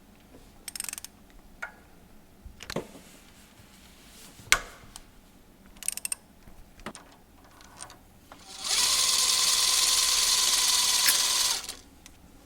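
A handheld power tool whirring steadily for about three seconds, starting about two-thirds of the way in and stopping abruptly. Before it come scattered clicks and knocks of tools being handled.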